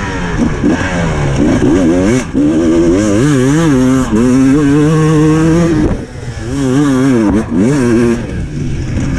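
Dirt bike engine heard from the rider's helmet, revving hard and rising and falling in pitch as it is ridden flat out across a bumpy field, with brief drops in revs about two seconds and six seconds in.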